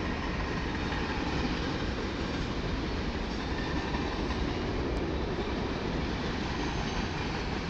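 Long freight train of many cars rolling past, a steady rumble of wheels on the rails.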